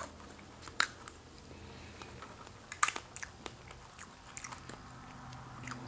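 Close-miked eating sounds: a plastic fork working into strawberry shortcake in a plastic container, with soft chewing and a scattering of sharp clicks and smacks.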